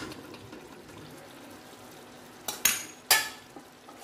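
A metal spoon strikes and scrapes against a metal kadai as stuffed bell peppers are turned in the oil: a click right at the start, then two sharper clinks about two and a half and three seconds in. Between them a faint, steady sizzle of frying.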